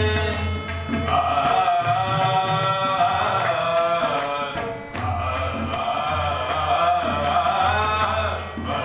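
Indian devotional singing accompanied by harmonium and tabla: a voice sings held, melodic phrases over the harmonium's sustained reed notes while the tabla keeps a steady beat. The phrases break briefly about a second in and again around five seconds.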